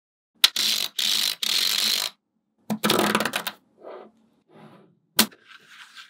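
Small magnetic balls clicking and rattling together as they are handled, in two dense clattering bursts of about a second each, a few softer clusters, and a single sharp snap about five seconds in.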